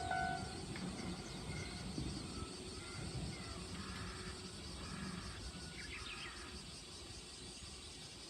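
Japanese level crossing's electronic warning bell, a pulsing two-tone ring, stops about half a second in, which signals that the train has cleared the crossing. The low rumble of the departing train then slowly fades, with a few faint high chirps around six seconds in.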